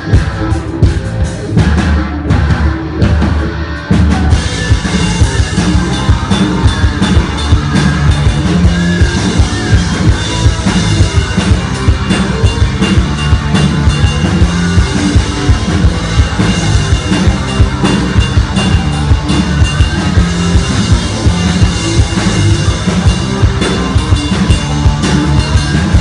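Hard rock band playing live, with drum kit, electric guitars and bass. The first few seconds are sparser, then about four seconds in the full band comes in loud with fast, driving drums.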